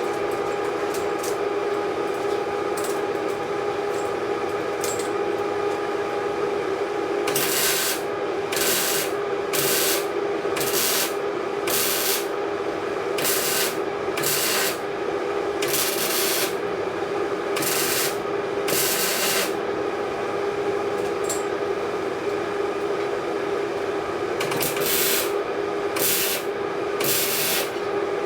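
Welding a turbo wastegate shut: a run of short arc bursts, each about half a second to a second of crackling hiss, as the weld is laid in stitches. The bursts begin about seven seconds in and stop briefly, then four quicker ones come near the end, all over a steady hum.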